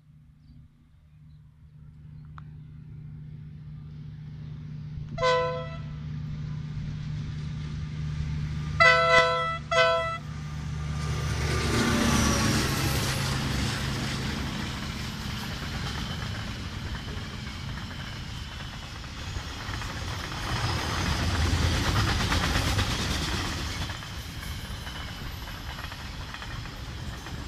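A KiwiRail diesel freight locomotive approaches with its engine drone growing louder and sounds its horn three short times, once about five seconds in and twice near nine to ten seconds. It then passes close by, followed by the steady rumble and clatter of its wagons rolling past on the rails.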